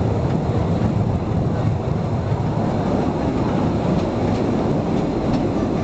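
Postojna Cave tourist train running through a tunnel, heard from an open carriage: a steady, even rumble of the cars on the rails.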